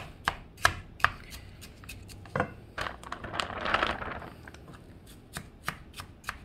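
Kitchen tongs clicking and scraping irregularly against a nonstick frying pan while stirring frozen cauliflower rice. About three seconds in comes a soft, brief rustle as more cauliflower rice is shaken in from its bag.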